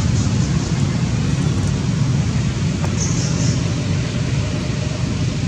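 A steady low rumble of background noise with no clear pitch, plus a brief faint high-pitched sound about three seconds in.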